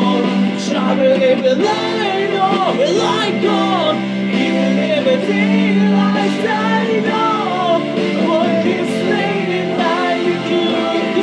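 A man singing an improvised vocal line over a backing track, his voice wavering and gliding in pitch over steady sustained accompaniment.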